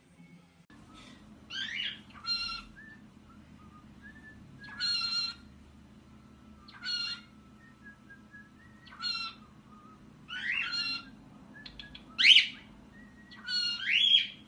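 A bird giving about eight squawking, whistled calls, one every second or two, several rising in pitch; the loudest comes about twelve seconds in. A steady low hum runs underneath.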